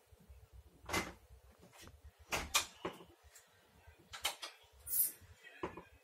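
A series of separate sharp knocks and clicks, about seven in all, the loudest a little past two seconds in and about five seconds in.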